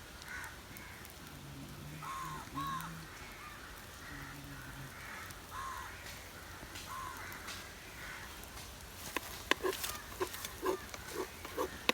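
Crows cawing in the background, about six short calls spread over the first seven seconds. A run of sharp taps and clicks follows near the end.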